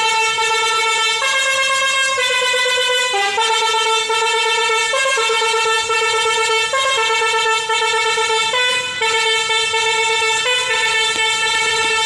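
Lorry's musical basuri (telolet) horn playing a melody: a long run of held notes stepping up and down in pitch, each about a second long.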